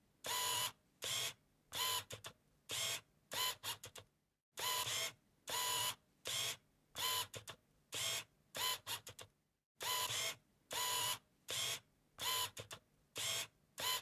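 Edited-in sound effect of short mechanical clicking and whirring bursts in a set pattern that repeats as a loop about every five seconds, with dead silence between the bursts.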